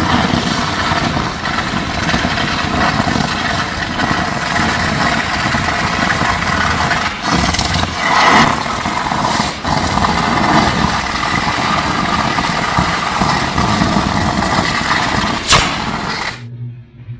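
Electric arc on the roof of an electric commuter train: a loud, continuous rough roar with a few sharp cracks.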